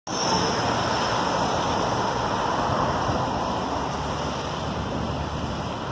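Steady rain with car tyres hissing on the wet street, a continuous even hiss.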